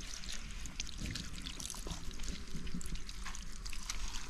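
Water poured from a plastic bottle into a metal wok, trickling and splashing with many small drips as hands rinse the rat meat in it.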